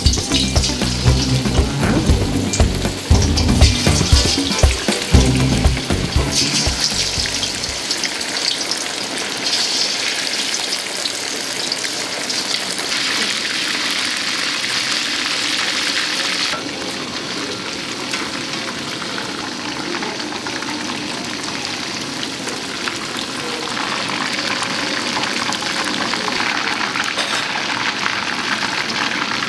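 Cornstarch-coated fish pieces deep-frying in hot sunflower oil in a stainless steel wok: a steady hiss and crackle of bubbling oil. The sizzle jumps abruptly in strength a few times.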